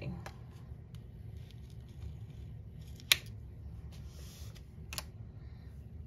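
A scraper dragged briefly across a metal nail-stamping plate to clear off the excess polish, a short hissy scrape about four seconds in. A sharp click comes about a second before it, the loudest sound, and a smaller click shortly after.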